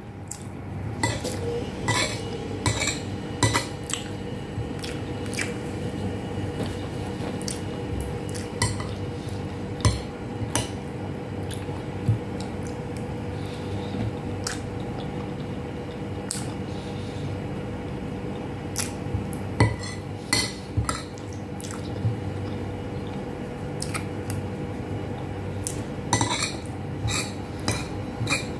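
Metal spoon and fork clinking and scraping against ceramic plates, in irregular clusters of sharp clicks while food is scooped up, over a faint steady hum.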